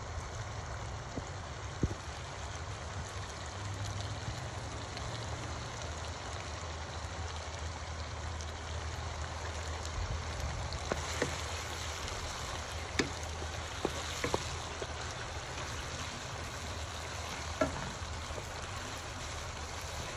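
Sauce of tomatoes, onions and green peppers simmering in a pan, bubbling and sizzling steadily. Scattered sharp clicks and pops come through in the second half.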